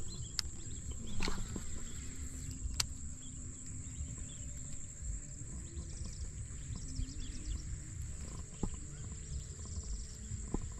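Outdoor ambience: a steady high-pitched insect drone over a low rumble of wind on the microphone, with a few sharp clicks, the loudest about a second in.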